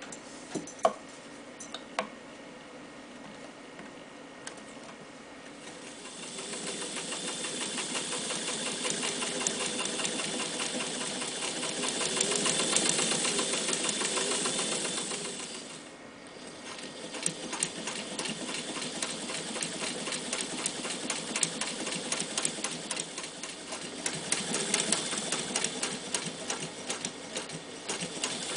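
Jones 104 electric sewing machine stitching through heavy woven webbing. After a couple of light clicks it runs for about ten seconds, speeding up and then slowing to a stop. After a brief pause it runs again with a rapid, even ticking of the needle strokes.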